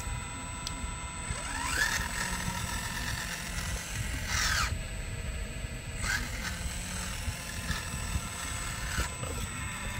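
Radio-controlled scale Volvo excavator's small electric motors whining as the upper body slews and the boom and arm move. The whine rises and falls in pitch several times.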